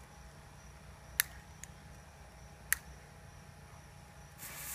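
Two short sharp clicks about a second and a half apart over a faint background hum, then near the end a handheld sparkler catches and starts to hiss and sizzle.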